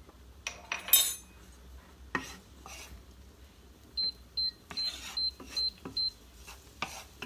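Kitchen utensils knock and clatter against cookware, loudest about a second in. Then come six short, high electronic beeps, evenly spaced at about two and a half a second, with light clatter between them.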